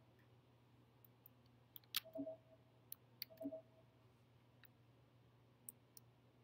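Near silence with faint scattered laptop trackpad clicks, plus two short dull knocks about two and three and a half seconds in, over a low steady hum.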